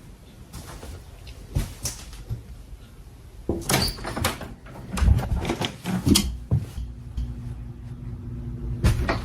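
Bangs and scratching at a basement door, coming in irregular clusters of sharp knocks: a first group a few seconds in, a louder run about halfway through, and another bang near the end.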